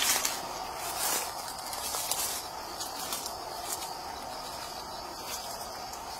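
Orchard ambience: a faint, steady drone of insects, with a few soft rustles and footsteps in the first couple of seconds as the camera moves through the vines.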